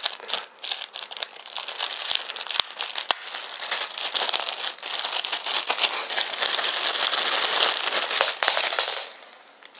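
Clear plastic bag crinkling and rustling as hands open it and handle the wiring harness inside, with a few sharp clicks along the way. The crinkling dies down about nine seconds in.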